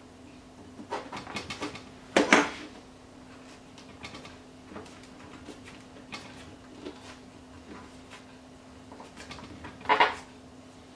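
Hands handling tools and leather on a cutting mat: a few light knocks and rustles, a sharp clatter about two seconds in as the steel rule is set down, and another knock near the end, over a faint steady hum.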